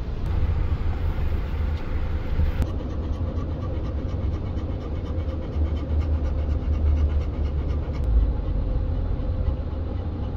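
Labrador panting over the steady low rumble of a moving car, with wind noise.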